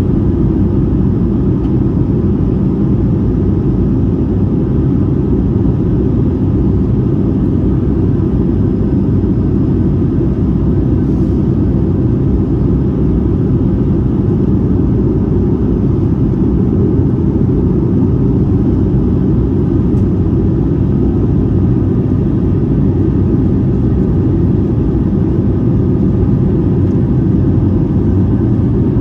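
Steady cabin noise of an Airbus A220-300 in flight: the low drone of its Pratt & Whitney PW1500G geared turbofan engines and the rush of airflow, heard from a window seat beside the wing and engine. It holds even and unchanging throughout.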